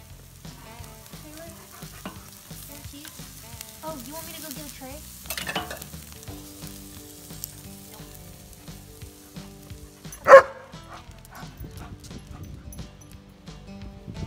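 Steaks sizzling over hot charcoal on an open kettle grill. A German shepherd gives one short, loud bark about ten seconds in.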